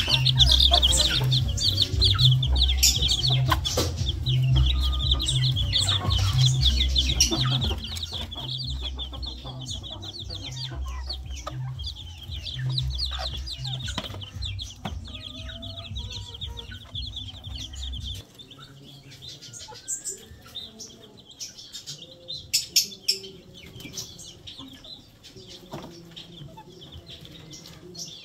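A brood of chicks peeping constantly in rapid high notes, with hens clucking now and then. Underneath runs music with a heavy bass beat that stops suddenly about two-thirds of the way through, after which the peeping thins to scattered calls.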